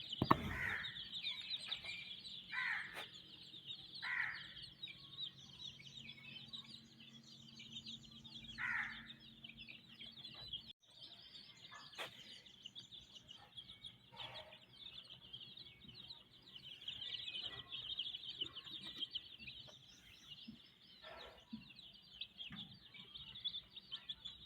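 Black Shamo/Aseel chicks peeping continuously in a rapid, high chorus, with a few louder, lower calls now and then. A thump right at the start.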